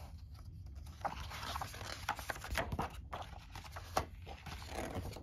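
Paper rustling as the pages of a thick game rule book are flipped, with a few short crisp page snaps.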